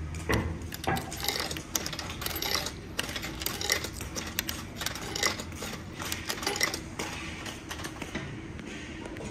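Coins being fed one at a time into a vending machine's coin slot, clinking as they drop through the coin mechanism. The clicks come quickly and unevenly, thinning out near the end, over a steady low hum.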